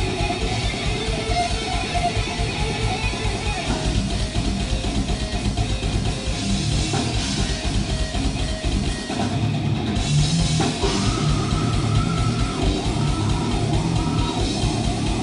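Death metal band playing live: distorted electric guitars and bass over very fast, dense drumming with rapid kick-drum strikes. The low end thins out briefly about nine seconds in, then the full band carries on.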